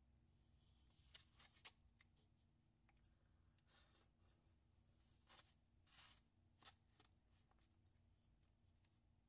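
Near silence with a faint room hum and scattered faint clicks and short scrapes of a plastic spoon and fork against a styrofoam food tray during eating.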